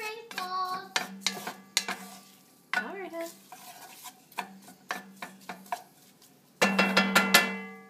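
Wooden spatula stirring and scraping diced red onion and garlic frying in olive oil in an enamelled cast-iron pot. The onions sizzle, and the spatula knocks against the pot again and again, loudest near the end.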